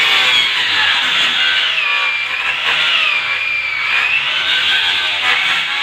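Electric angle grinder cutting through the rim of a plastic inspection-chamber riser, running under load with a steady whine whose pitch dips and recovers as the disc bites into the plastic.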